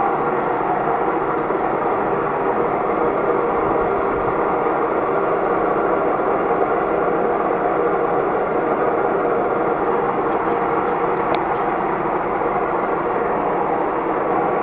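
Metal lathe running steadily while a cutting tool skims the face of a scored brake disc, with a few faint clicks about ten seconds in.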